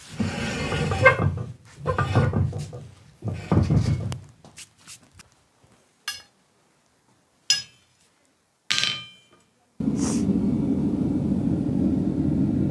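Heavy knocks and thuds at an anvil, then a few sharp metal strikes that ring briefly. In the last few seconds a propane gas forge's burner runs with a steady rushing noise.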